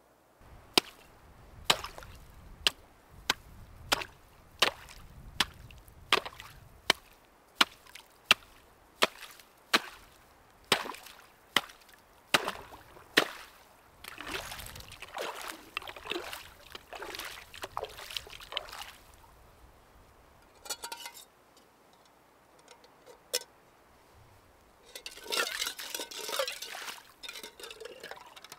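Small hatchet chopping a hole in pond ice: about twenty sharp strikes a little under a second apart, then rougher crunching and splashing as the broken ice is worked loose. Near the end a metal pot is dipped into the open water, with a short burst of splashing.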